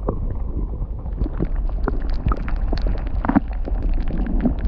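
Shallow stream water heard underwater through an action camera's housing: a steady low rumble with many small sharp clicks and ticks, which turn brighter from about a second in.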